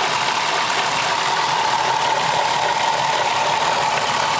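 2002 Dodge Caravan's 3.3-litre V6 idling with a steady high-pitched squeaking from the belt drive. It is an alternator squeak: the uploader found the alternator had a wiggle to it once the belt was off, a sign of a worn alternator bearing.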